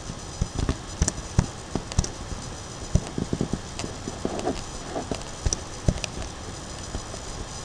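Computer mouse clicking irregularly, sometimes several clicks a second, over a faint steady microphone hiss.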